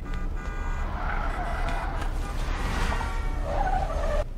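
A car driving up: a steady low engine rumble with tyre hiss that swells to its loudest about three seconds in, then cuts off abruptly.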